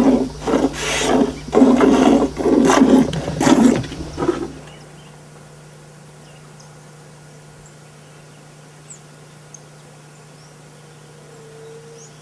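Hand milking: jets of milk squirting from a cow's teats into a metal bucket, in rhythmic squirts about two a second, stopping about four and a half seconds in. After that only a quiet background with a faint steady hum.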